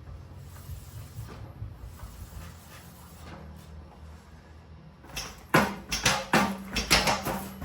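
Faint low hum, then about five seconds in a quick, irregular run of sharp metallic knocks and clunks from the front wheel and fork assembly being worked into line.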